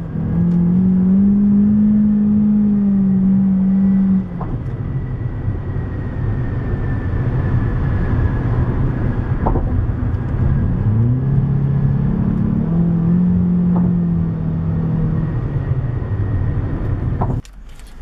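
Car engine and road rumble heard from inside the cabin while driving at highway speed. The engine's drone holds steady, drops about four seconds in, then climbs again as the car accelerates, and cuts off suddenly near the end.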